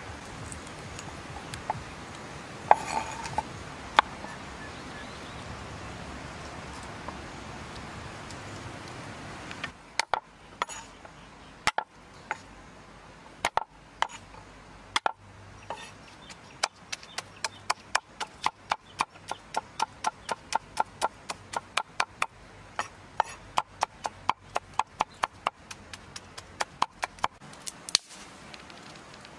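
Knife chopping on a wooden chopping board, plausibly garlic cloves. A few separate cuts come first, then a steady run of chopping at about three strokes a second. Before that there is a steady hiss with only an occasional knock.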